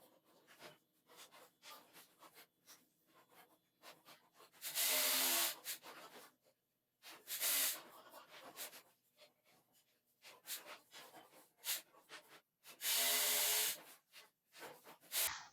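Wood being worked by hand: three harsh rasping strokes of about a second each, with light knocks and handling sounds between.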